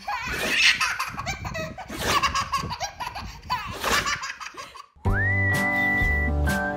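A baby laughing in repeated bursts of belly laughs. About five seconds in, the laughter cuts off and background music starts, with a high whistle-like melody over a steady beat.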